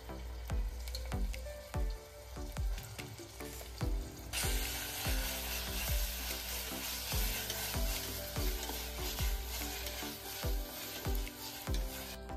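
Sliced onions and paste frying in oil and ghee in a stainless steel pressure cooker, stirred with a spoon and then a wooden spatula. A loud sizzle comes in suddenly about four seconds in and stops just before the end.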